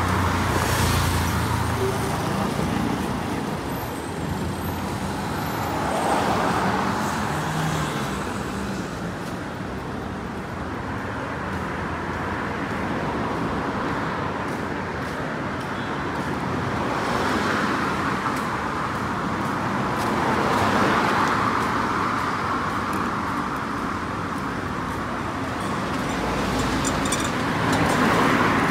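Street traffic: cars passing one after another, their engine and tyre noise swelling and fading every few seconds.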